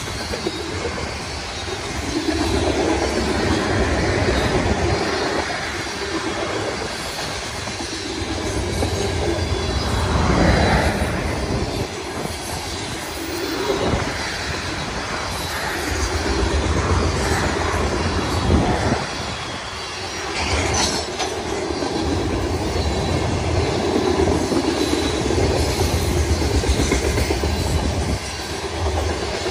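Covered hopper cars of a freight grain train rolling past at track speed: a continuous rumble and clatter of steel wheels on the rails that swells and eases every few seconds as the cars go by.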